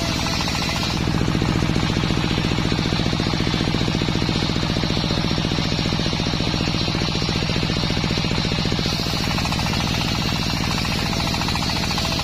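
The engine of a homemade circular sawmill running with a fast, even beat. About a second in its low sound grows louder and stays so until about nine seconds in.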